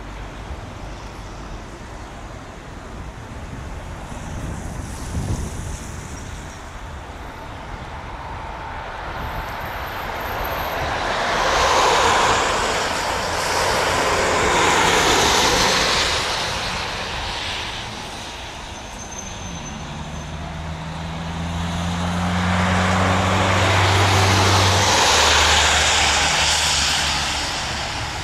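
Jet engines of an Airbus A320 running as the airliner moves past on the ground. The jet noise swells and fades twice, loudest about twelve to sixteen seconds in and again near the end, with a low hum under the second swell.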